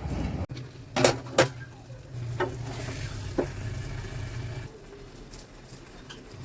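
Spoon stirring a pan of cooking curry, knocking against the pan four times over a faint sizzle. A low hum stops about two-thirds of the way through.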